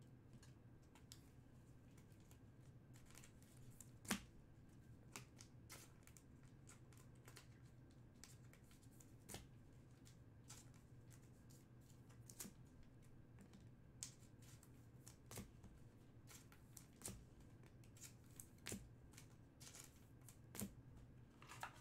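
Faint, scattered taps and clicks of trading cards being handled and set down on a table, over a low steady hum.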